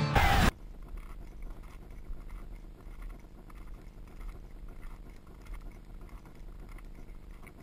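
Music cuts off suddenly about half a second in. After it comes faint, irregular crunching of a climber's boots on snow-dusted ice, over a low wind rumble on the microphone.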